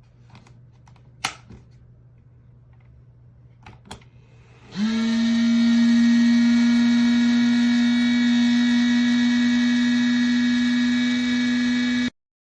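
A few faint clicks, then a small electric motor starts up with a loud, steady high-pitched buzz that runs for about seven seconds and cuts off suddenly.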